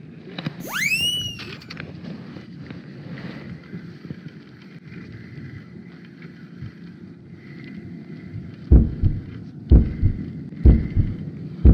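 Water and wind noise around a fishing kayak. About a second in there is a single high whistle-like glide that rises and falls, and near the end come four heavy low thumps about a second apart.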